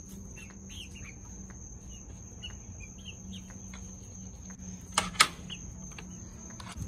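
Young chickens giving soft, short peeps while pecking at greens scattered on sand, with two sharp clicks about five seconds in.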